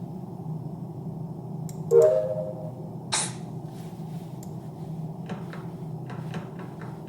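Hands handling the mouse's packaging: a sharp knock with a brief ring about two seconds in, a short rustling swish a second later, then faint light clicks and rustles, over a steady low hum.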